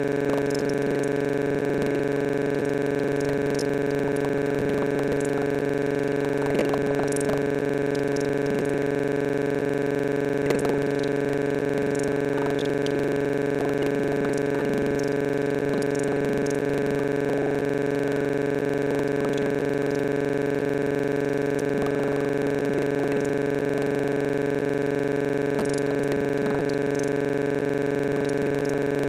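Steady electronic drone of several fixed pitches held at an unchanging level, with faint, indistinct flickers beneath it.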